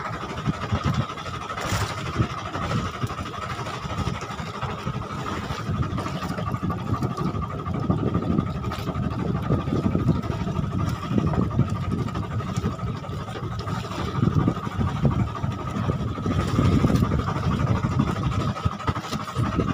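Fishing boat's engine running steadily, a constant high hum over an uneven low rumble of wind and water.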